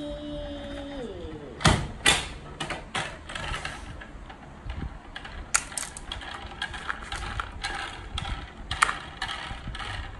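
Small hard-plastic toy figurines and a plastic toy jet clicking and clattering against each other and a plastic basket as they are handled and scooped up by hand. Irregular clicks, with the loudest knocks about two seconds in.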